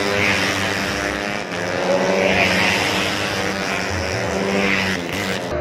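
Small 125cc four-stroke underbone racing motorcycles running hard at high revs as they pass one after another.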